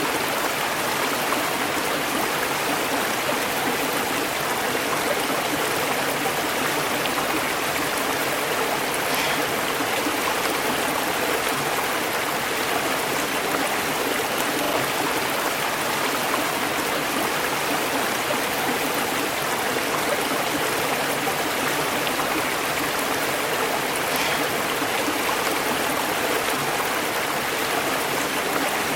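River water flowing over rocks, a steady rushing and babbling with no change in level.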